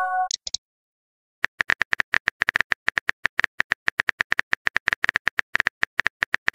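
Rapid keypress clicks of a texting-app typing sound effect, several a second, each with a short beep, starting about a second and a half in as a message is typed out. At the very start, the tail of a short chime from a message notification.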